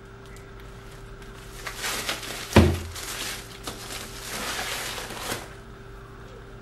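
Plastic shipping mailer bag crinkling and rustling as it is handled and rummaged through, with one loud thump about two and a half seconds in as it is set down on the desk.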